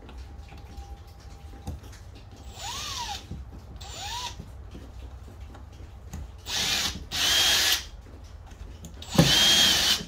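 Cordless drill boring mounting holes into a carpeted boat deck in short bursts. It opens with two brief spins that rise and fall in pitch, then three longer, louder runs with the motor under load.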